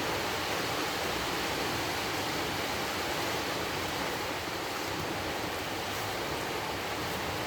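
Heavy rain from a tropical storm falling steadily, a constant rushing hiss.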